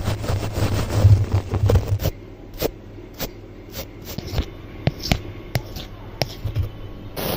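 Close, irregular scraping and scratching of an object being handled. It is dense, with a low rumble, for about the first two seconds, then thins out into scattered short ticks and taps.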